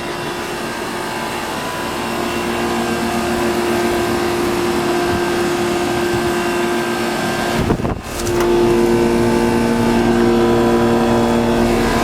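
Two 2-ton Comfortmaker central air-conditioner condensing units running: a steady hum from their reciprocating compressors under the rush of the condenser fans, growing louder over the first few seconds, with a brief disturbance about eight seconds in.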